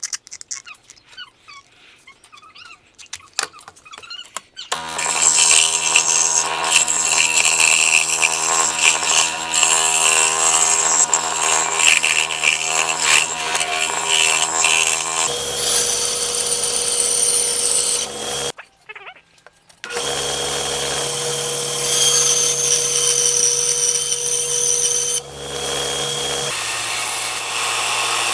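An electric power tool running and cutting into wood, a steady motor hum under rough cutting noise, heard in several spliced stretches with a short break between them. The first few seconds are quieter, with scattered handling clicks.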